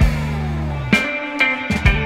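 Live instrumental rock band: electric guitar and bass guitar over a drum kit, with a note sliding down in pitch during the first second and drum hits near the start and in the second half.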